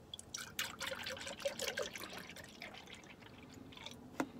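Almond milk pouring from a carton into a plastic blender cup, splashing irregularly and busiest in the first two seconds before thinning out. A single sharp click near the end.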